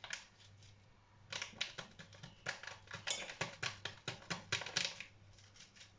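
Paper sachet of salad-dressing powder crinkling and being tapped over a salad dish: a quick run of small dry clicks starting about a second in and lasting some four seconds.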